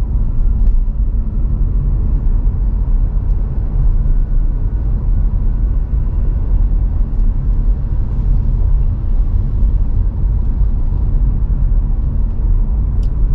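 Steady low road and tyre rumble of a VinFast VF5 electric car driving, heard from inside the cabin, with no engine note.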